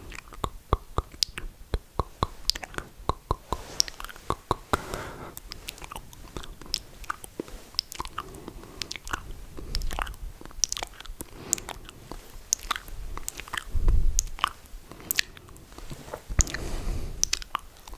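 Close-miked ASMR mouth sounds: wet lip smacks and tongue clicks in quick, irregular succession, with a few breathy stretches of vaping breath and a soft low thump about two-thirds of the way through.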